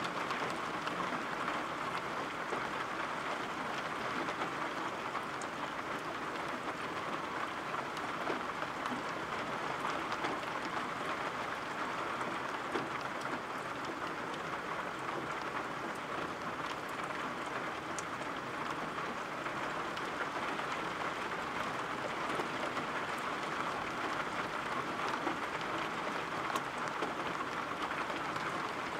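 Steady, even rainfall, with a few single drips standing out now and then.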